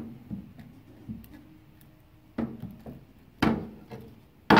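Handling knocks from steel groove-joint pliers and flat lithium pouch cells on a wooden board: one sharp knock at the start, then three more in the last two seconds, the last the loudest.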